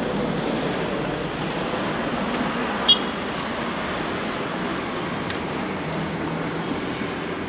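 Steady city street traffic noise from cars on the road beside the sidewalk, with one short, sharp high-pitched chirp about three seconds in.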